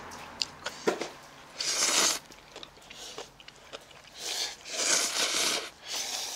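Instant ramen noodles slurped from bowls with chopsticks: one long slurp about two seconds in, then a longer run of slurps from about four seconds in and again near the end, with a few light clicks before them.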